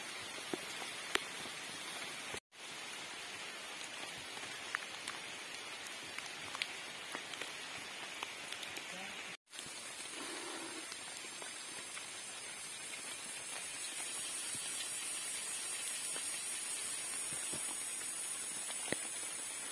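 Heavy rain falling steadily, an even hiss with scattered sharp drop taps. It cuts out briefly twice and grows a little louder in the second half.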